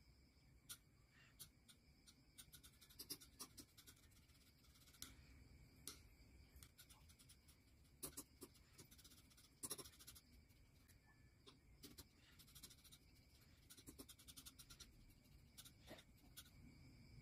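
Faint scraping and clicking of a metal palette knife spreading and mixing paint on a smooth surface, in short, irregular strokes.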